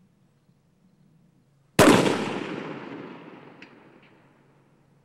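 A single shot from a scoped bolt-action precision rifle: one sharp, loud crack about two seconds in, its echo rolling away across the range over about three seconds.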